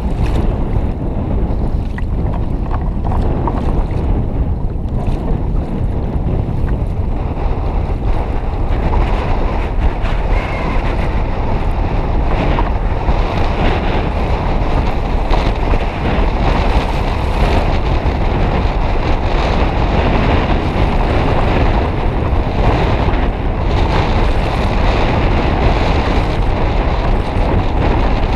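Strong wind buffeting the microphone, with choppy sea waves washing around a kayak. The noise is steady and sits mostly in the low end.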